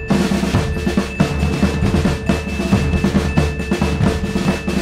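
Background music: a drum-led percussion track with fast, dense drum hits and rolls.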